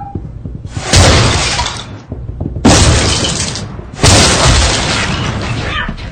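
Three loud crashes, each starting suddenly and trailing off in a rattling clatter over a second or two, like things smashing and falling.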